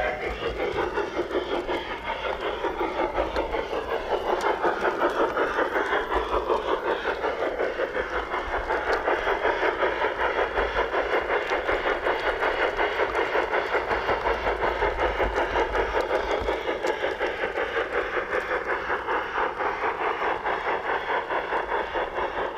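Digitally controlled, track-powered model South African Garratt steam locomotive running, its sound decoder giving a steady, regular steam chuff over the noise of the wheels on the rails.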